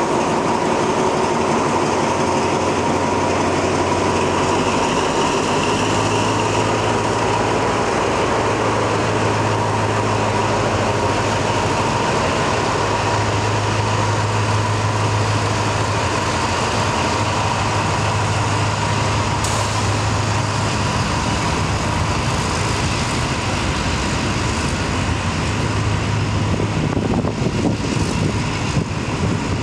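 Diesel locomotive of a freight train approaching, a steady engine drone with a low hum that grows stronger about five seconds in.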